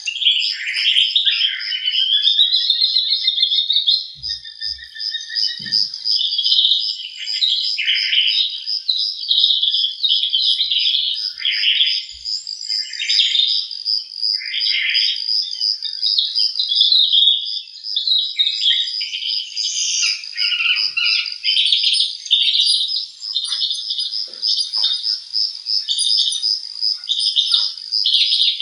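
Many birds chirping and calling together, with overlapping short chirps and sweeping notes over a steady, fast-pulsing high trill.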